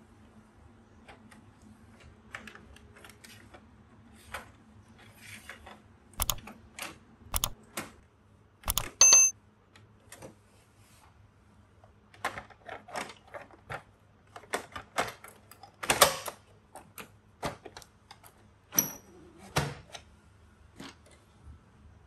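Irregular sharp plastic clicks and knocks from a laser printer's IBT cleaner assembly being handled and fitted into the machine. The two loudest snaps come about a third of the way in, with a brief ring, and a little past the middle.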